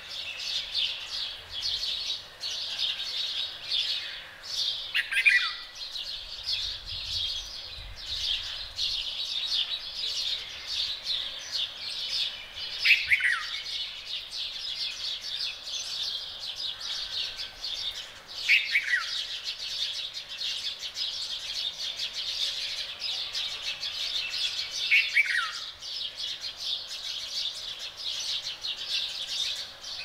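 Dawn chorus of many small birds chirping densely and without a break, with a louder single call that slides down in pitch, heard four times about six seconds apart.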